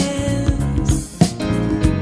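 Slow soul/R&B music with guitar, bass and drums; a drum hits at the start and again a little after a second in.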